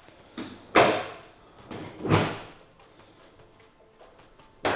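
Carbon-fibre car hood being lowered onto newly shortened hood pins and latched, with three separate clunks about a second, two seconds and near the end; the fullest is the middle one, the sharpest the last.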